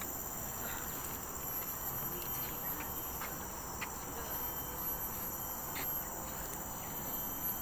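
Steady, high-pitched chorus of insects from the surrounding tropical forest canopy, with a few faint short chirps over it.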